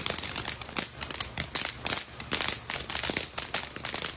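Consumer fireworks crackling: a dense, irregular run of sharp pops and snaps, several a second.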